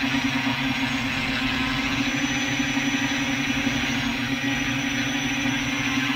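Multirotor drone's motors and propellers humming steadily in flight, an even, unchanging drone with a strong low hum.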